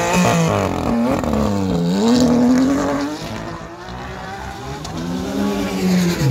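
Porsche 911 GT3 RS's naturally aspirated flat-six making a racket as it pulls away hard from the start. The engine note climbs and drops with each gear change during the first three seconds, then grows quieter as the car drives off. Near the end an engine note rises and falls once more.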